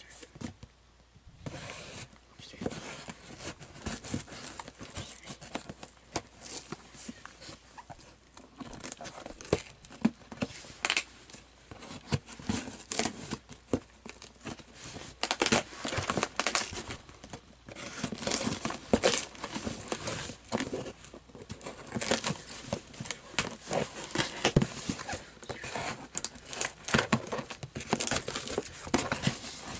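Cardboard shipping box being opened by hand: scissors cutting packing tape, tape tearing away, and cardboard flaps and paper crinkling. These make an irregular string of scrapes and crackles, quieter for the first couple of seconds.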